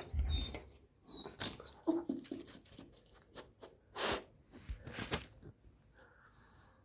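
A puppy sniffing and snuffling hard at the gap under a door where a rat is hiding, in a string of short sudden bursts, with a brief whine about two seconds in.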